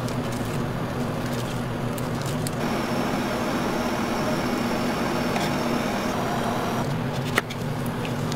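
Steady machine hum and hiss, with a single sharp tick about seven seconds in.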